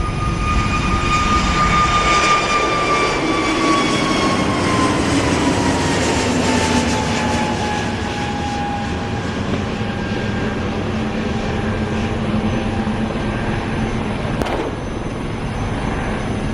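Airliner passing close by, its engine whine sliding down in pitch as it goes past, over a steady rushing roar. A brief sharp click near the end.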